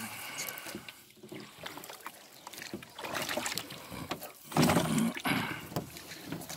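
Small rowboat moving along a reed bed: irregular bursts of splashing and rustling, loudest a little after halfway.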